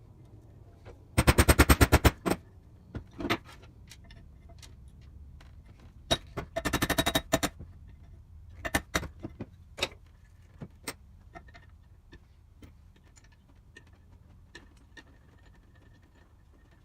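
Two bursts of rapid, loud metallic clicking, about ten clicks a second for around a second each, with scattered single clicks and knocks between them: tools and parts being handled as the power hacksaw is reassembled.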